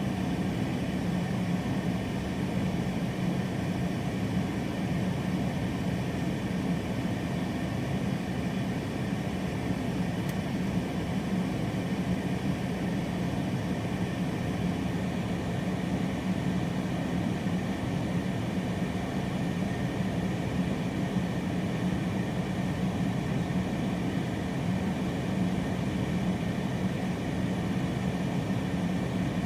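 Strong wind making a steady rushing rumble at an even level throughout.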